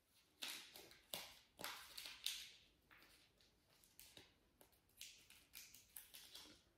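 Packaging rustling and crinkling in short, irregular bursts as a clip-top glass storage jar is unwrapped and handled, with a lull about three seconds in.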